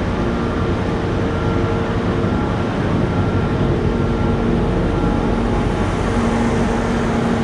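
Steady mechanical running noise with a few faint steady hum tones and no distinct strokes or impacts, typical of loading machinery at work.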